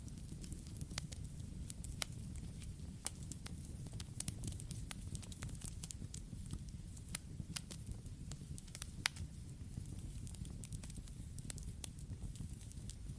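Campfire crackling: irregular sharp pops and snaps over a steady low rumble of burning wood, with one louder pop about nine seconds in.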